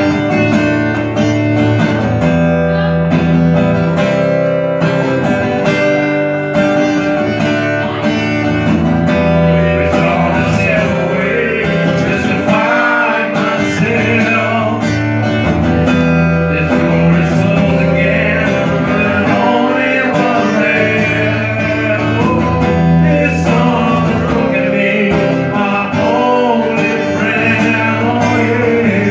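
Acoustic guitar strummed steadily under a harmonica played close into a microphone, carrying the melody with bent, gliding notes: an instrumental passage of a slow rock song.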